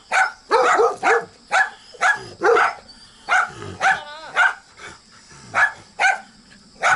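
Dogs barking hard and repeatedly, about a dozen sharp barks at uneven spacing. This is territorial barking at an unfamiliar dog.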